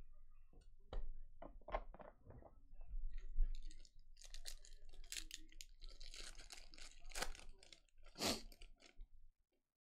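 Trading cards tapped and slid on a stack, then the foil wrapper of a football card pack crinkling as it is handled and torn open, with one loud sharp crackle near the end.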